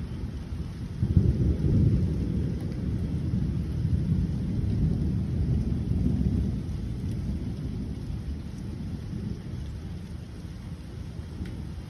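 Rolling thunder: a low rumble that swells about a second in, peaks briefly, then rolls on for several seconds and fades.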